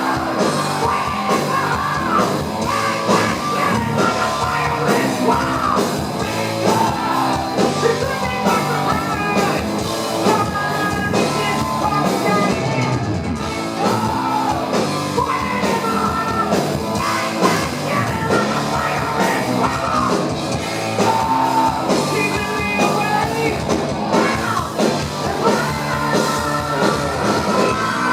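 Live heavy metal band playing loud, with distorted guitars, drums and a high yelling rock vocal.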